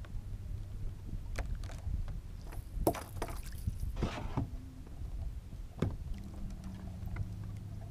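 Scattered knocks, clatters and rustling of hands and gear against a plastic fishing kayak while a caught fish is handled aboard, with a short rushing noise about four seconds in. A low steady wind rumble runs underneath, and a faint steady hum comes in near the end.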